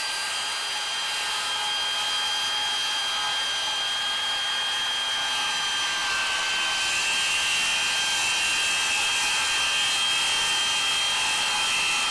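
SKILSAW TRUEHVL cordless worm drive circular saw, a brushless motor, running under load as it cuts through MDF. It gives a steady high whine over the noise of the blade in the board.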